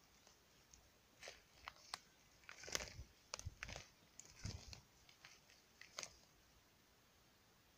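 Footsteps crunching over dry twigs and pine-needle litter, with a few sharp twig snaps, irregular and faint, stopping about six seconds in.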